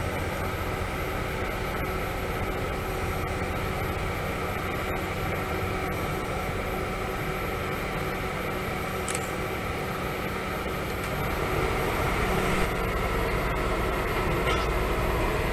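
Westlander passenger train moving slowly past, its diesel engines giving a steady drone that grows louder about twelve seconds in as the carriages come closer.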